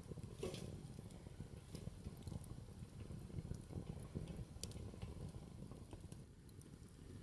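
Small wood fire crackling in a metal camp stove, with scattered sharp pops over a low, steady rumble.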